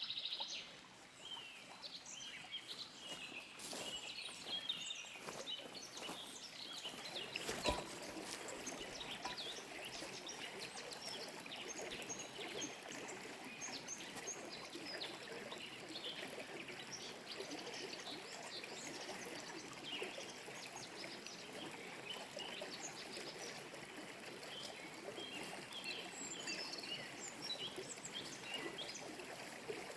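A creek running steadily with many small birds chirping throughout, and a single sharp knock about eight seconds in.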